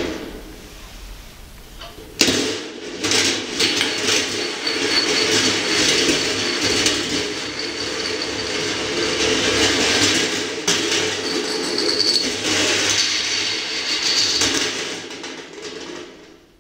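A 22 mm marble rolling along the copper-wire tracks of a rolling ball sculpture: a continuous rolling sound that starts suddenly about two seconds in, rises and falls in loudness as the marble changes speed, and dies away near the end.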